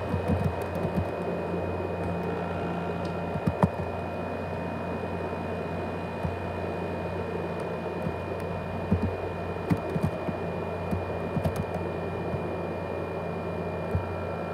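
ASUS X543UA laptop's cooling fan running steadily, a constant whir with a low hum and a thin high whine: the 'jet engine' noise of a laptop its owner calls broken down. Scattered light clicks sound over it.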